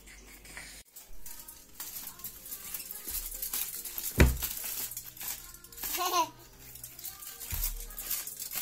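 Crumpled strip of aluminium foil crinkling and rustling as a toddler waves it about, with one heavy thump about four seconds in and a short high child's vocal sound about two seconds later.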